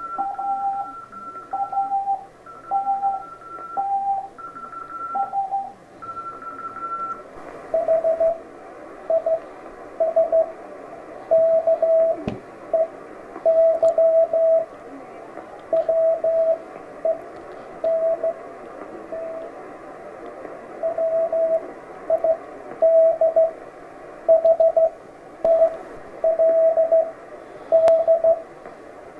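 Morse code (CW) tones from an amateur radio transceiver, keyed at slow speed over steady band hiss. For the first seven seconds or so the tone is higher-pitched; after that a lower-pitched signal takes over and keeps sending dots and dashes.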